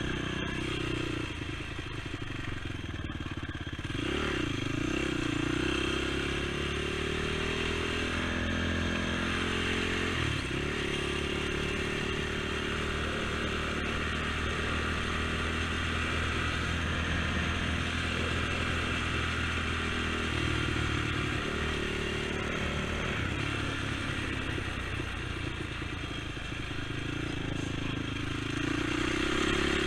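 Honda TRX450 quad's engine running under way, its pitch dropping and climbing again a few seconds in, then shifting with the throttle and rising once more near the end.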